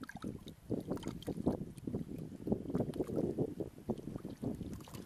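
Hands sloshing and splashing through shallow muddy water while groping for fish, a quick irregular run of small splashes.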